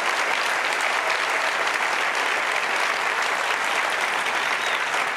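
A large seated audience applauding, a dense, steady clapping that holds at one level throughout.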